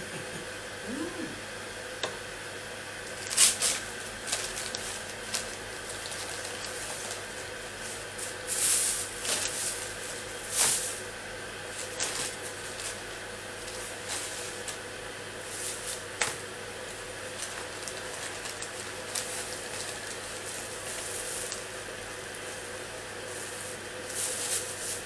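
A paper fast-food bag and a plastic carrier bag rustling and crinkling in short, irregular bursts as food is unpacked from them, over a steady faint hum.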